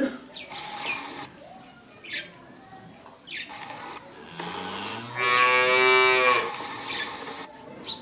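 A cow moos once: one long call that starts low about four and a half seconds in and rises into a loud, full tone, the loudest sound here. A few short rising bird chirps come before and after it.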